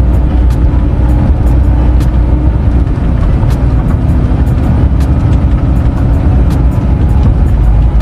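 Semi tractor's diesel engine running under light load at low speed, a loud steady low rumble inside the cab.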